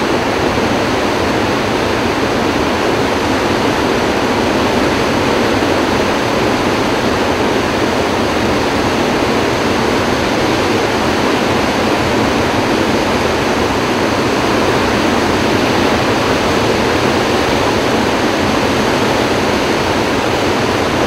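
Floodwater rushing through the open spillway gates of Kaw Dam, a loud, steady, unbroken rush of turbulent discharge water at about 44,000 cubic feet per second.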